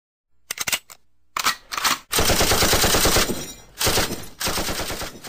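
Automatic gunfire: a few separate shots, then bursts of rapid machine-gun fire, the longest running continuously for about a second from two seconds in.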